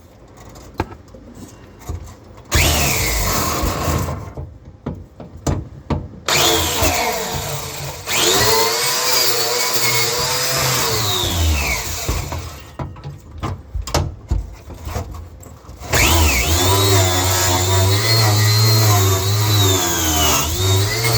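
Angle grinder with a wire wheel brushing steel, run in several bursts. Its pitch sags and recovers as the wheel is pressed against the metal.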